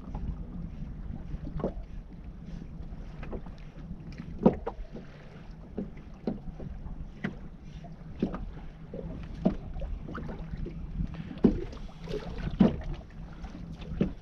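Small waves slapping against an inflatable boat's hull in irregular knocks, over a steady low rumble of wind on the microphone.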